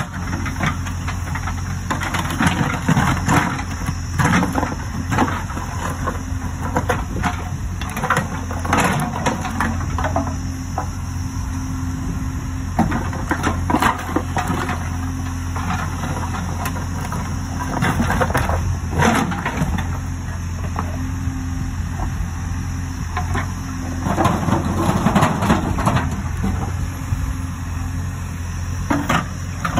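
JCB backhoe loader's diesel engine running steadily, with repeated irregular clattering knocks as its bucket scrapes up and tumbles interlocking paver bricks.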